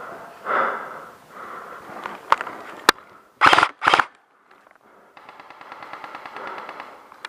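Airsoft guns firing: a couple of single sharp cracks, then two short full-auto bursts close by about three and a half seconds in, and a fainter stretch of rapid automatic fire from about five seconds on.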